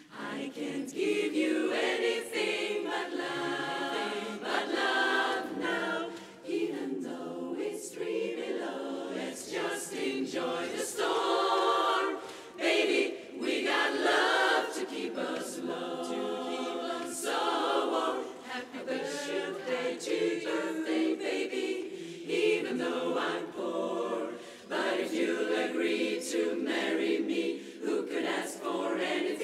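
Women's barbershop chorus singing a cappella in close harmony, in phrases with short breaks between them.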